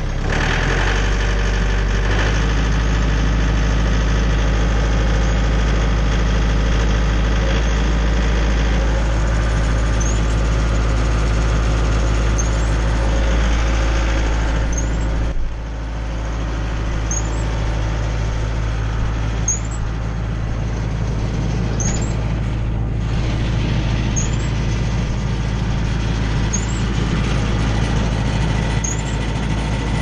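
Tractor engine driving a Jinma 8-inch PTO wood chipper, running steadily, with a step up in level at the start and a brief drop in level about halfway through. A faint high chirp repeats about every two seconds in the second half.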